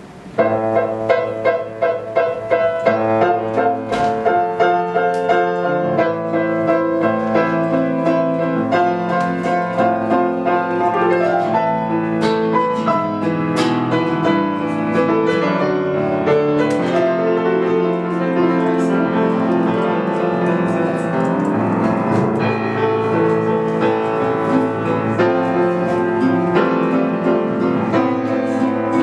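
Instrumental introduction of a slow ballad's backing track with piano prominent, before the vocal comes in.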